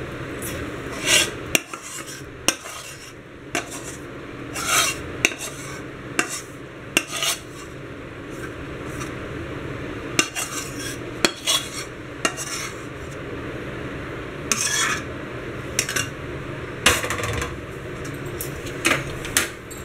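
Metal spatula scraping thick, sticky mohanthal batter out of a steel kadhai onto a steel plate, metal on metal, in repeated short scrapes and clinks at uneven intervals.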